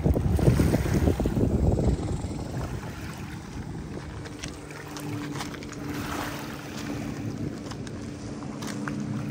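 Wind buffeting the microphone for the first couple of seconds, then easing. A distant motorboat engine drones steadily from about halfway through, with light clicks of small waves lapping on the pebble shore.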